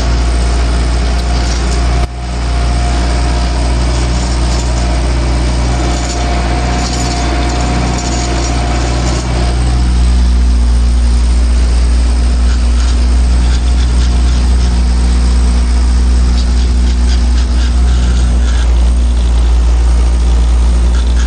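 Massey Ferguson 590 tractor's four-cylinder Perkins diesel engine running steadily under load, pulling a three-furrow plough. The engine note dips briefly about two seconds in, then deepens and gets a little louder about halfway through.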